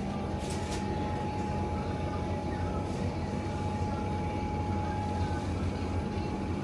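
Steady background hum of a convenience store interior, with a faint constant high whine and faint distant voices.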